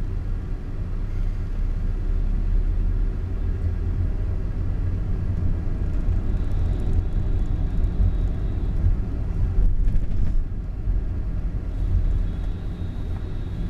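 Steady low rumble of a car's engine and tyres, heard from inside the cabin while driving slowly in traffic.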